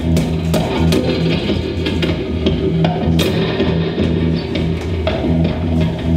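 Improvised electric guitar playing: repeated low sustained notes with frequent sharp percussive hits.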